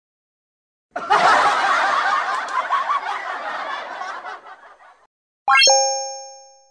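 Canned laughter: a crowd laughing and chuckling, fading out over about four seconds. It is followed by a short upward swoop ending in a ringing chime-like tone that dies away.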